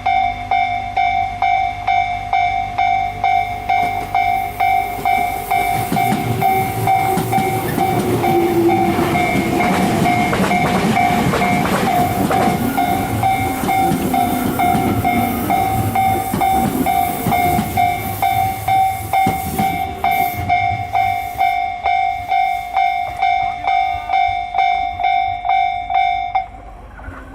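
Japanese railway level-crossing alarm ringing in an even, repeating ding, about one and a half strokes a second, and stopping abruptly near the end. From about five seconds in to about twenty, a train runs over the crossing, its wheels clicking over the rail joints.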